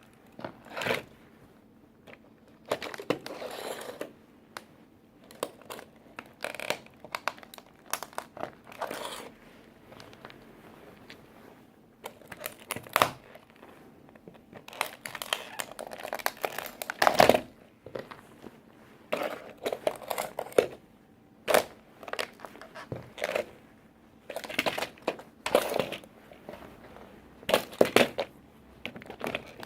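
Work boots stomping on a toy tractor, crushing it with irregular crunches and cracks, the hardest stomps about halfway through and near the end.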